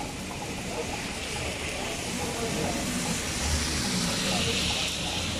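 Steady hiss of rain on a wet road, joined by a van's tyres swishing through the water as it drives past, the hiss swelling from about three seconds in.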